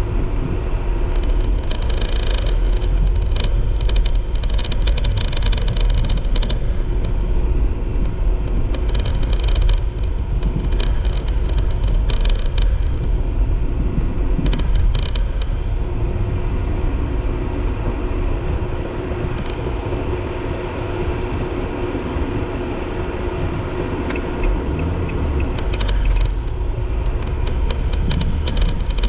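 Strong blizzard wind buffeting the microphone: a steady, heavy low rumble with bursts of crackling throughout.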